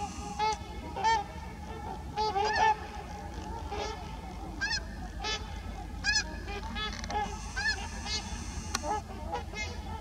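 Trumpeter swans calling: a string of short honks from several birds, some overlapping, about one every half second to second.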